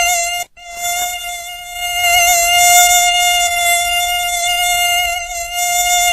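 Mosquito buzzing: a steady, high-pitched whine. It breaks off briefly about half a second in, then resumes unchanged.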